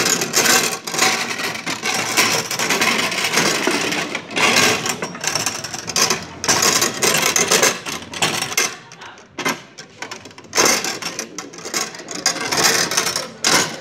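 Foosball game in play: metal rods rattling in their bearings and the player figures striking the ball against the table, a dense run of quick knocks and clatters with a short lull in the middle.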